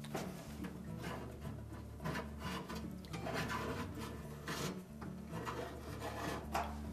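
Putty knife scraping the remains of an old self-adhesive lint chute seal off a dryer's blower housing, in uneven strokes about a second apart.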